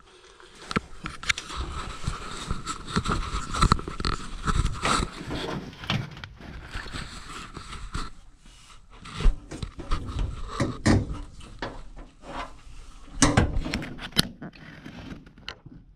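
Irregular knocks, clicks and scrapes of hands handling things. A faint steady high whine runs under them for about the first six seconds.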